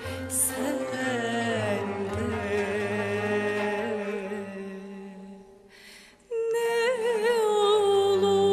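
Slow Turkish classical art song in makam Kürdilihicazkar: a female voice singing ornamented, wavering notes with a small traditional ensemble behind her. The music fades almost to nothing about six seconds in, then comes back in abruptly with a long held, wavering note.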